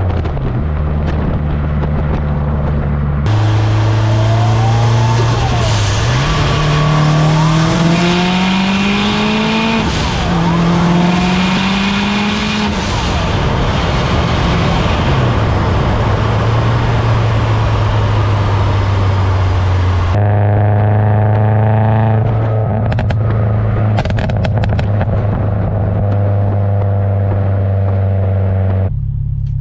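Heavily boosted turbocharged Subaru STI flat-four engine running on the street, its note climbing twice as the car accelerates and then holding steady at cruise. Heard close up through the engine bay and exhaust, with a rushing hiss over the middle stretch.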